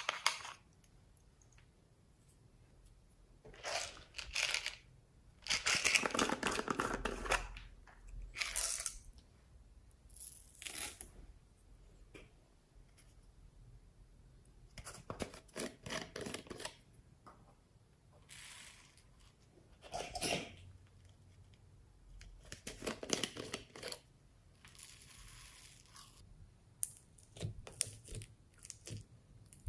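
Small plastic tubs and a bottle of foam beads being opened and the beads tipped out onto a dish of slime: a series of short, noisy handling sounds with quiet gaps between, the longest about six seconds in.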